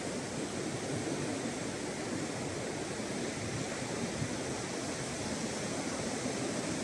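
Sea surf breaking and washing onto a sandy beach, a steady rush of noise with no separate wave crashes standing out.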